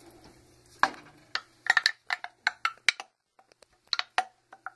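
A spatula scraping and knocking against a glass measuring cup as the last of the chicken broth is cleared out into the soup pot: a quick, irregular run of sharp clicks and taps.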